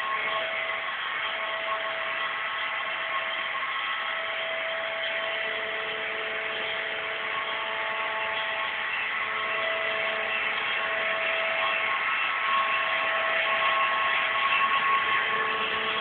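Euroflex Monster Intelligence robot vacuum cleaner running: a steady whirr from its motor with a few high whining tones, getting louder near the end as it comes close.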